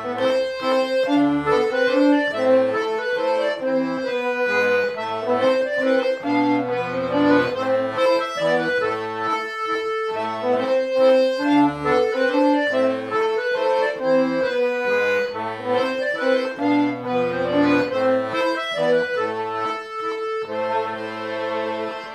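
Diatonic button accordion, a Castagnari, playing a mazurka: a melody on the right-hand buttons over changing left-hand bass and chord notes.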